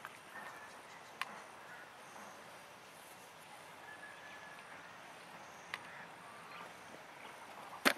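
Faint outdoor ambience with a few short, faint animal calls and occasional sharp clicks; the loudest click comes near the end.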